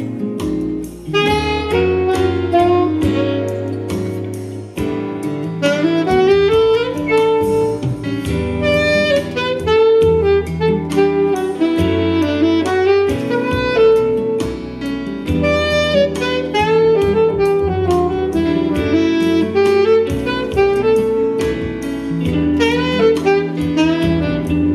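Jazz music with a saxophone carrying the melody over bass and a steady drum beat.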